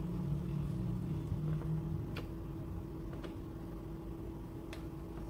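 A steady low background hum, with three faint clicks of a plastic spoon against a plate as food is scooped up.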